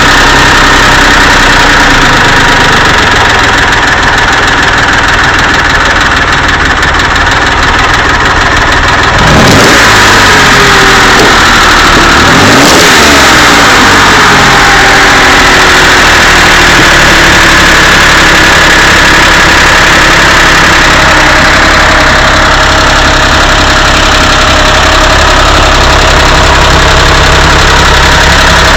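Porsche 911 air-cooled flat-six engine running at idle, revved briefly about a third of the way in and again shortly after, the revs sinking slowly back to idle. The engine comes from a rebuild that the owner says knocks, rattles and ticks, well outside Porsche specifications.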